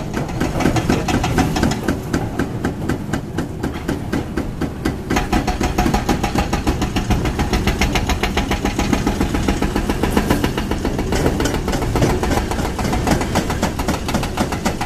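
Excavator-mounted hydraulic breaker hammering concrete in rapid, steady blows, over the low running of heavy diesel excavator engines.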